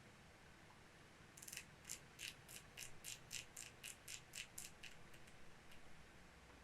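A faint run of about a dozen small, evenly spaced clicks, about three a second, stopping about a second before the end. These are typical of a night vision rifle scope's control being stepped click by click while it is being zeroed.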